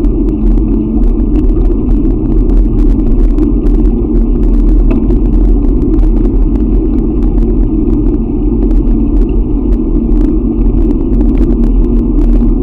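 Loud steady rumble of wind and road noise on the microphone of a camera riding along on a moving bicycle, with many small clicks and rattles throughout.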